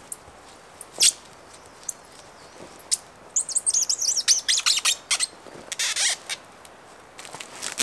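Plastic stretch wrap crackling and rustling as it is pulled off the roll and wound around a wooden pole frame, in short loud bursts. A songbird sings a rapid, high twittering phrase about halfway through.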